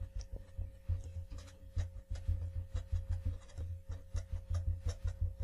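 Felt-tip marker writing on paper: a quick, irregular string of short scratching strokes as letters are drawn.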